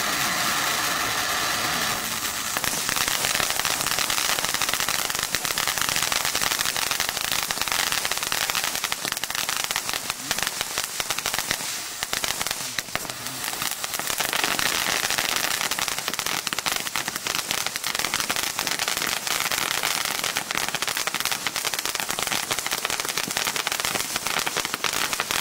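Ground firework fountain spraying with a steady rushing hiss, thick with dense crackling pops. It dips briefly about halfway through, then builds up again.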